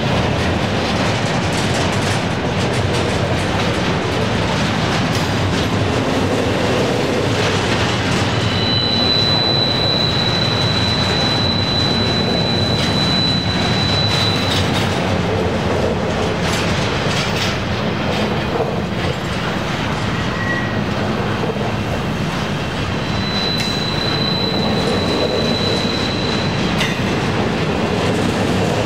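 Freight train rolling past with a steady rumble and clatter of steel wheels on rail. A thin, steady high-pitched wheel squeal comes in for about six seconds a third of the way through, and again for a few seconds near the end.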